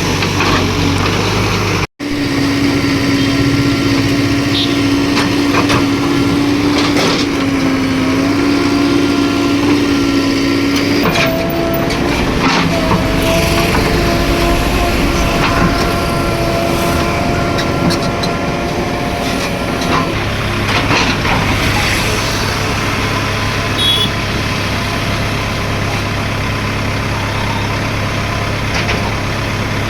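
Diesel engine of an earthmoving machine running steadily at work, with a wavering whine over the engine note and scattered short knocks. The sound cuts out for an instant about two seconds in.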